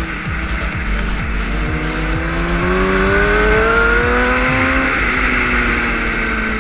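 Onboard sound of a 1000 cc superbike engine under way at speed, its note rising steadily through the revs for about three seconds before levelling off, with wind rushing over the camera.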